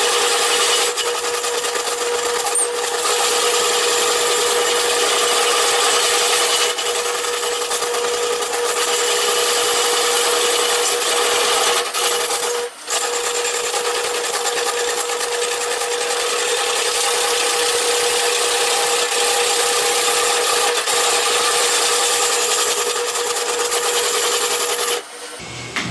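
A long gouge cutting into a large ash bowl blank spinning on a woodturning lathe: a loud, continuous scraping hiss as shavings tear off, over a steady hum. It breaks off briefly about halfway, as the tool leaves the wood.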